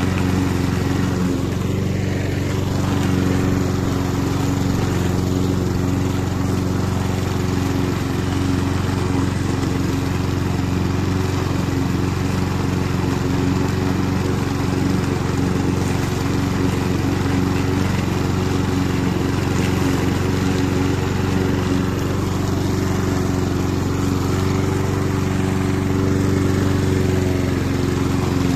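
Roller lawn mower's engine running steadily under load, an even drone that holds the same pitch and level throughout.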